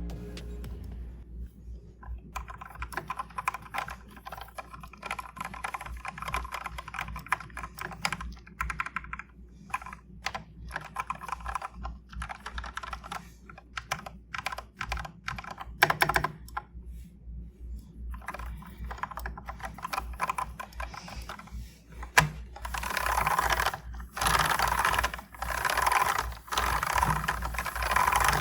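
Typing sound test on a full-size Keychron K10 Pro mechanical keyboard fitted with lubed Akko V3 Cream Black Pro switches and Womier MOA-profile PBT keycaps: rapid key strokes in spurts with short pauses and a few louder single strokes, getting faster and denser near the end.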